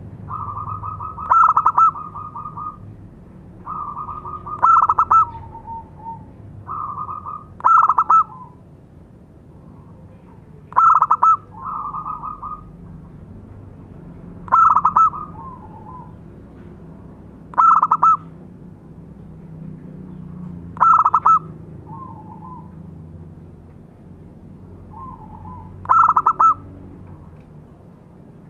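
Local-type zebra dove (perkutut) cooing its song over and over, a phrase about every three seconds. Each phrase is a rolling trill that builds into loud stuttering notes, some ending on a lower note, with one longer pause near the end.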